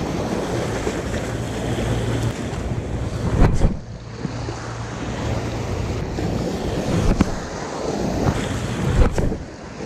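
Small waves breaking and washing over a rocky, pebbly shoreline, with wind buffeting the microphone. Three brief louder thumps come about three and a half, seven and nine seconds in.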